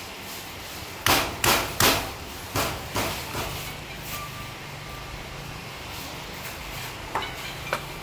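Meat cleaver chopping roast chicken on a wooden chopping board: six sharp chops in quick succession starting about a second in, then two lighter chops near the end.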